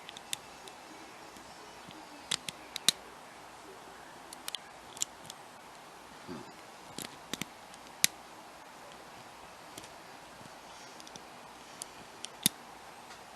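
A pin-tumbler challenge lock being picked by hand: the pick and tension wrench click sharply and irregularly against the pins and keyway, some eighteen separate clicks over steady low hiss.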